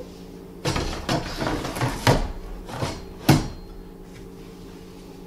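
Stainless steel ash insert and plastic ash container of a Cinderella incinerating toilet being handled and slid back into the base of the unit: a run of knocks and scrapes, the sharpest knock about three seconds in. A steady low hum runs underneath.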